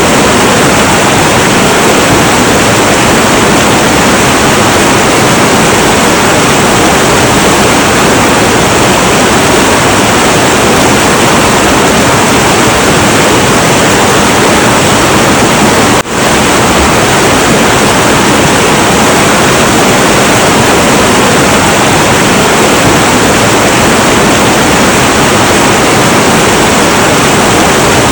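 Heavy, turbulent river flowing: a loud, steady roar of rushing water that dips briefly once, a little over halfway through.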